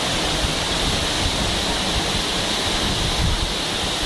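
Waterfall heard from right beside and behind the falling water: a steady, loud rush of water pouring down.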